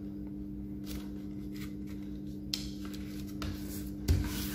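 A sheet of paper being folded and creased by hand: a few soft, brief rustles and scrapes as the fingers press and smooth the fold, the loudest about four seconds in. A steady low hum runs underneath.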